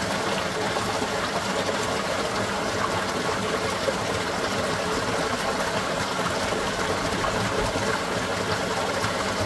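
Pumped water gushing steadily into a wooden trough, a churning, splashing rush; the pump itself is nearly silent, so the water is what is heard.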